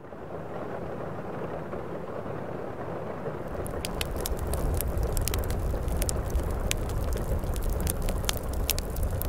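Steady rain noise, then from about three and a half seconds in a wood fire crackling in a fireplace, with frequent sharp snaps over a low rumble.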